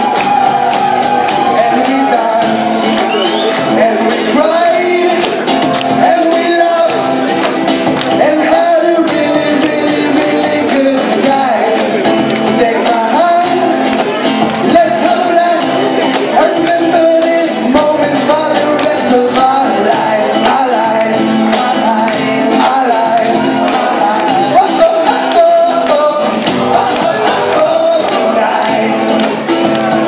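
Live band music over a hall PA: electric guitar, cajon and a lead vocal, playing steadily throughout.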